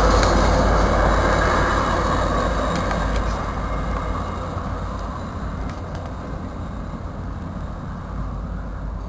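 Bi-level commuter train cars rolling along the rails and moving away, the rumble and wheel noise fading steadily as the cab car recedes down the track.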